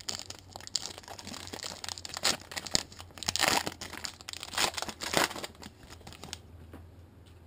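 Trading card pack wrapper crinkling and tearing as the pack is torn open and the cards are pulled out, in irregular crackles that stop about six seconds in.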